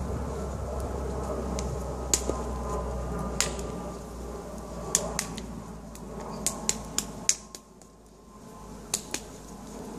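About a dozen sharp snapping clicks at irregular intervals, a few of them in quick pairs, from hands striking or snapping during slow hand-exercise movements, over a low steady rumble.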